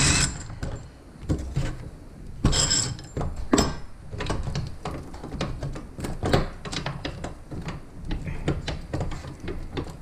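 Irregular metal clicks, clanks and knocks as a coil spring and strut assembly is handled and adjusted on a workbench, with a brief brighter scrape about two and a half seconds in.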